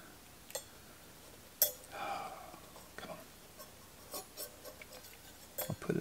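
Sparse small clicks and taps from the metal parts of an old Philco power switch being handled and fitted together, the loudest about a second and a half in.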